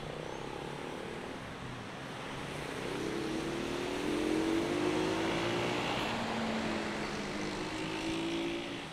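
Traffic on a rain-wet avenue: a steady hiss of tyres on wet asphalt, with a passing vehicle's engine growing louder from about three seconds in, its pitch rising slightly.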